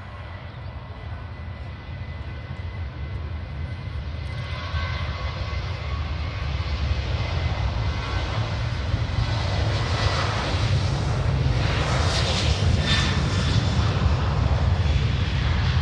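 Boeing 737-800's twin CFM56-7B turbofan engines at takeoff thrust during the takeoff roll. A deep rumble grows steadily louder as the airliner accelerates along the runway, and a rushing hiss builds in over it from about nine seconds in.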